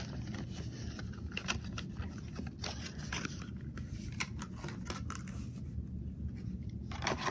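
Plastic blister pack crackling and clicking in the hands as a die-cast toy truck is worked out of it. The clicks come thickly for the first few seconds, thin out, then bunch again just before the end.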